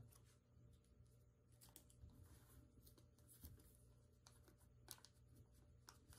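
Near silence, with a few faint scattered ticks and crinkles from hands handling a boxed laptop's plastic shrink-wrap.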